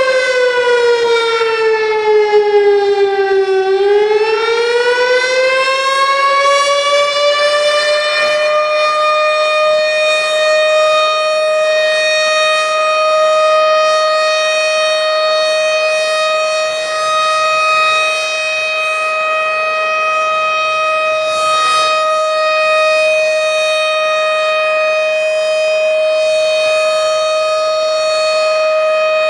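Tornado warning siren sounding. Its pitch falls for the first few seconds, then rises again and holds one steady tone for the rest.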